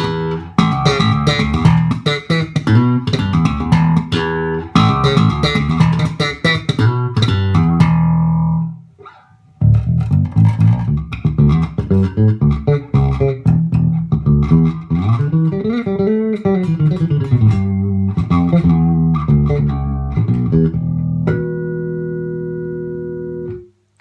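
Yamaha TRB5II five-string electric bass played fingerstyle, its EQ set flat and its pickup balance centred so both pickups sound. A run of plucked bass lines with a brief pause about nine seconds in and a slide up and back down the neck midway, ending on a long ringing chord that is muted shortly before the end.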